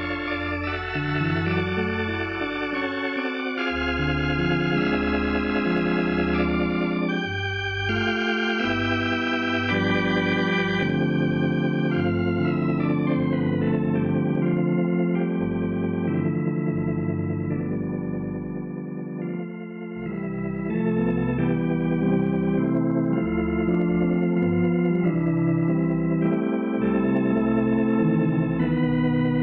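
Organ music playing sustained chords over a moving bass line, the closing music of an old-time radio drama. It dips briefly in loudness about two-thirds of the way through, then swells back.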